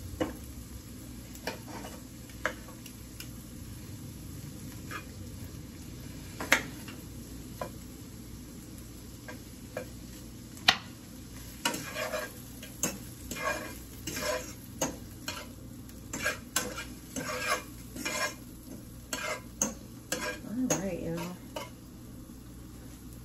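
Shrimp sizzling in a nonstick frying pan while a knife and fork cut them into pieces, with sharp metal clicks and scrapes against the pan. About halfway through the clicks come thick and fast as the fork stirs the shrimp around.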